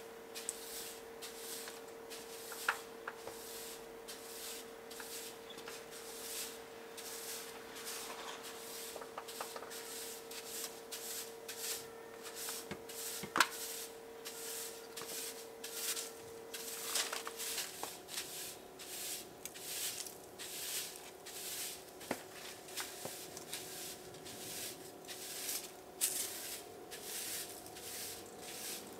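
A plastic broom sweeping ceramic floor tiles: short bristle swishes, about two strokes a second.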